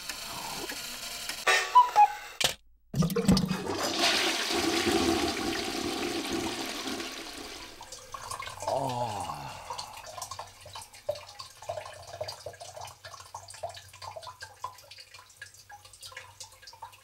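Water rushing and swirling in a basin, loud for several seconds and then dying away, followed by scattered small drips.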